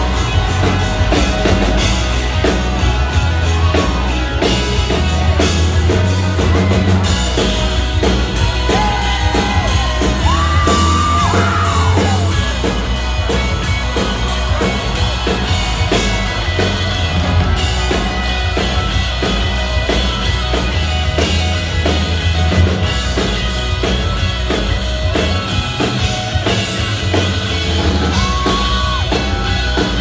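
Live country-rock band playing: electric and acoustic guitars over a steady drum beat, with voices yelling and whooping over the music.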